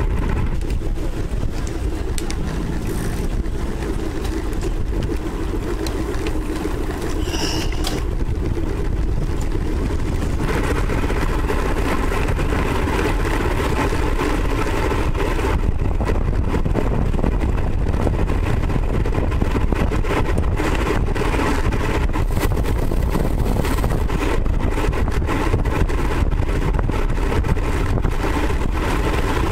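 Steady wind rush buffeting the microphone of a camera on a moving road bike. Frequent brief crackles come in the second half.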